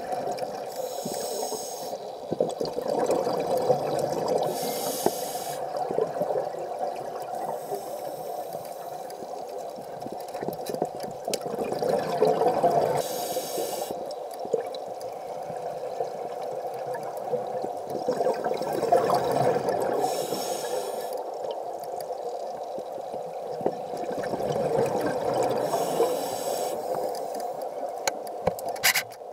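Scuba diver breathing through a regulator underwater: about every six seconds a breath ends in a hissing rush of exhaled bubbles, over a steady hum. A sharp click near the end.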